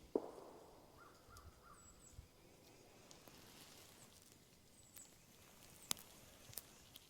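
Faint outdoor dawn ambience: a soft thump at the start, three short distant bird calls about a second in, a few faint high chirps, and a sharp click near the end.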